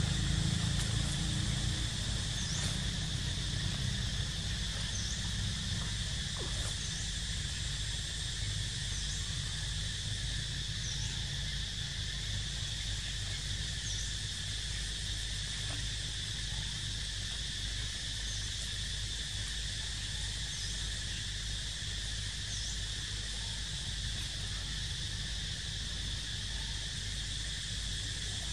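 Steady high drone of insects, with faint short high chirps repeating every second or two, over a low outdoor rumble that is louder at the start.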